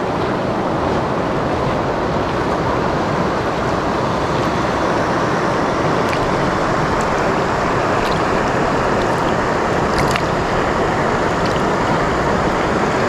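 Fast, shallow river rushing over a stony bed: a steady, even rush of water with a few faint ticks.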